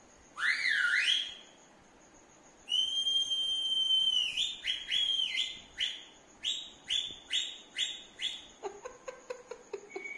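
High whistled notes: one swooping whistle, then a long held note, then a run of about ten quick falling whistles, two or so a second. A lower, wavering sound follows near the end.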